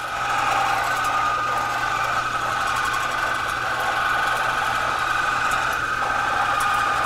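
Metal lathe taking a heavy roughing cut in 304 stainless steel at about 650 RPM and 10 thousandths per revolution, the indexable insert peeling off curled, spring-like chips. The sound is a steady cutting noise with a constant high tone, a little noisy.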